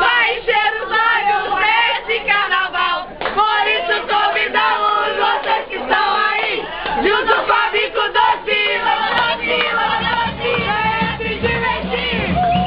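A party crowd singing and shouting together, many voices at once. A bass-heavy music beat comes in near the end.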